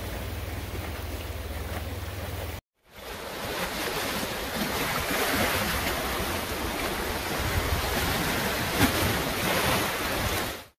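Rushing river water over small rapids, with wind buffeting the microphone. The sound cuts out briefly about two and a half seconds in, then comes back as a louder, fuller rush of water.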